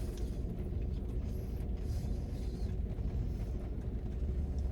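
Steady low rumble inside a parked car's cabin, with a few faint ticks over it.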